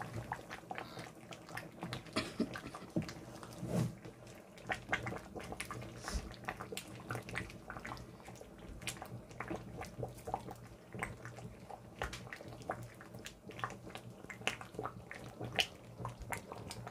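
Pot of thick black soup of bitter leaf and spinach simmering, bubbles popping irregularly at its surface, over a low steady hum.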